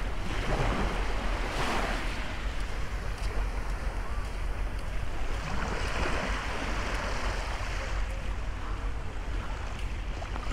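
Wind buffeting the microphone with a steady low rumble, over small waves washing onto a sandy shore that swell and ease a couple of times.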